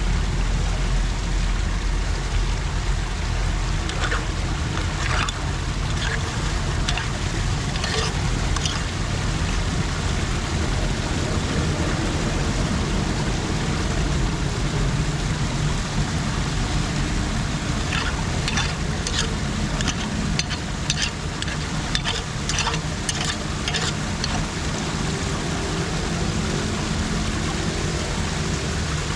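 Steady rush of floodwater on a street around a storm drain, with clusters of short clicks and knocks twice, as debris is cleared from the drain.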